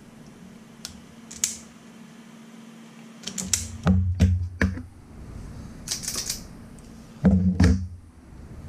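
Clicking and clattering of hand tools and wires being handled: a couple of light clicks early, a cluster of sharp clatters from about three and a half to five seconds in, a short rustle around six seconds, and heavier knocks near the end, over a faint steady hum.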